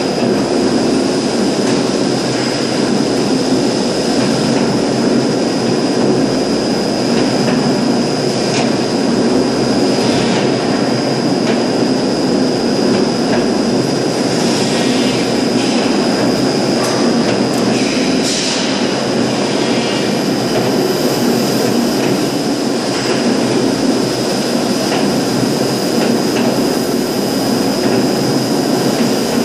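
Large extrusion blow-moulding machine for plastic drums running: a loud, steady machine din with a constant high whine, and a few light knocks and clatters now and then.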